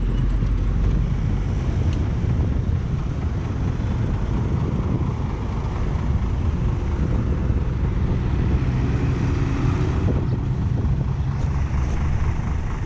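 Diesel truck engine running steadily close by, a low even rumble, with road traffic behind it.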